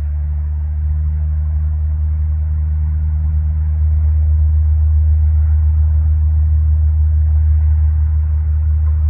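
Cessna 421B Golden Eagle's twin geared, turbocharged Continental GTSIO-520 piston engines running, a steady low drone that grows a little louder about four seconds in.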